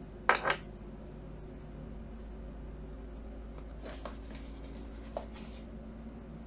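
Small handling clicks and taps from a hand at a desk: a sharp cluster of clicks about a third of a second in, then a few fainter ticks around four and five seconds in, over a low steady hum.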